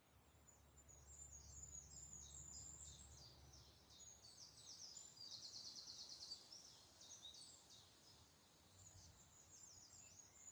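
Faint songbird song: a run of quick high-pitched chirps and twitters, with a fast, even trill a little past the middle. A low rumble sits underneath for the first few seconds.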